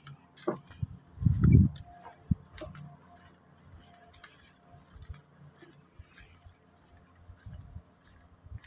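Steady high-pitched chorus of insects. A few sharp knocks and one louder dull thump come in the first couple of seconds.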